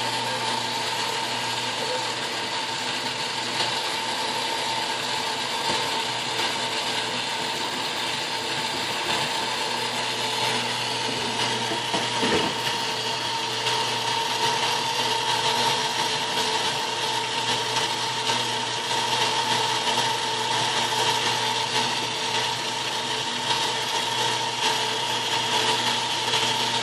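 Myford ML7 metal lathe running steadily under belt drive, its change gears meshing and lead screw turning to power-feed the carriage: a constant mechanical whirr with a steady hum in it.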